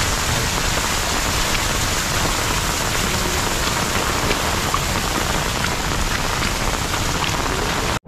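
Steady rain falling, an even hiss with a few scattered drops ticking close by.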